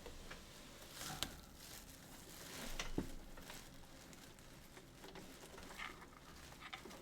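Faint handling noises: light rustling and scattered clicks, with a sharper click about a second in and a knock about three seconds in.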